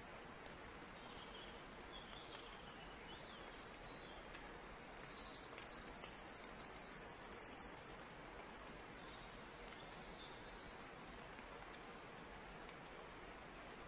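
A small songbird singing a fast run of high chirps for about two and a half seconds, starting about five seconds in, with a few fainter chirps earlier, over a steady low hiss.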